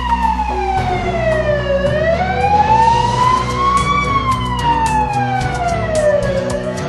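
A wailing siren, its pitch sliding slowly down and back up twice, each fall and rise taking a few seconds. Steady low tones and regular ticks of background music run underneath.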